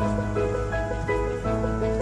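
Background instrumental music: a light melody of short notes over sustained bass notes that change about every second and a half.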